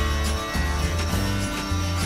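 Background music: a steady beat with a bass line and plucked guitar-like notes.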